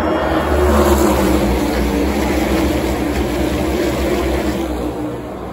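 Field of NASCAR Cup Series stock cars passing at racing speed, their V8 engines at full throttle. The engine noise is loudest about a second in, then slowly fades as the pack goes by.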